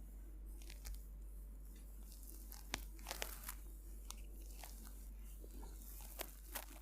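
Hands working over skin during a massage, with a scattering of sharp clicks and crackles, the loudest about three seconds in and two more near the end.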